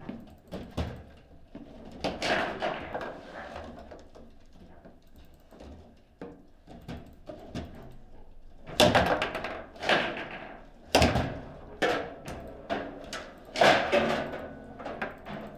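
Table football play: sharp clacks and bangs of the ball being struck by the rod figures and of rods knocking. The loudest bangs come close together in the second half.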